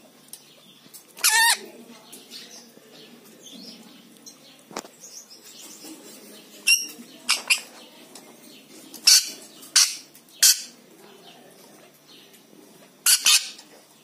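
Rainbow lorikeet giving short, harsh screeches, about nine in all: one early, then the rest singly and in quick pairs through the second half.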